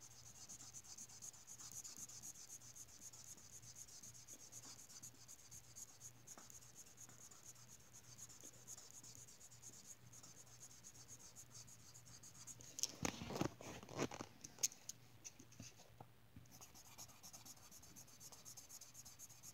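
Green felt-tip marker rubbing and scratching on coloring-book paper as it colors in, faint and continuous with a short pause near the end. A brief cluster of louder knocks about thirteen seconds in.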